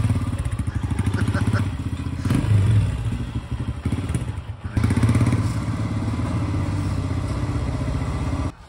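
2021 Royal Enfield Himalayan's 411 cc single-cylinder engine running at low speed as the bike rolls slowly, with a steady pulsing beat. It cuts off suddenly near the end.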